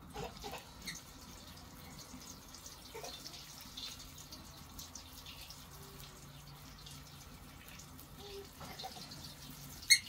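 Dough balls frying in a pan of hot oil over a wood fire: a faint, steady sizzle with scattered small pops and ticks. A sharp click stands out just before the end.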